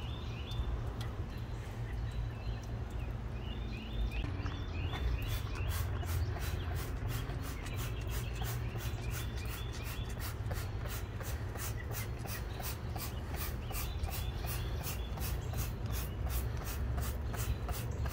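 Hand trigger sprayer spraying cleaner in quick short bursts, about three squeezes a second, starting about five seconds in. A bird sings short repeated phrases in the background over a steady low rumble.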